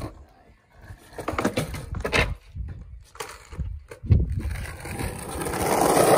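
Skateboard wheels rolling over the concrete of an empty swimming-pool bowl, the rolling rumble building over the last two seconds.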